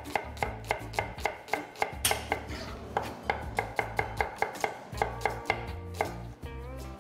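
Chef's knife slicing an onion into strips on a wooden cutting board: a steady run of sharp knocks of the blade on the board, about three to four a second.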